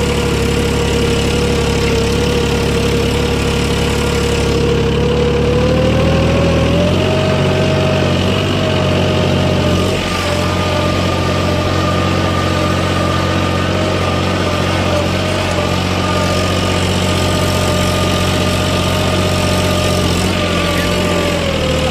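Mahindra Oja 3140 tractor's diesel engine running steadily while pulling a tine cultivator through the soil. Its pitch rises slightly about five to seven seconds in, holds, and sags a little near the end.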